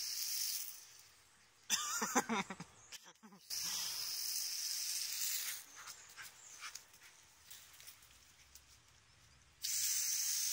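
Irish Wolfhound puppy giving a short burst of barking about two seconds in, amid spells of hissing spray from a garden hose jet, the last starting near the end.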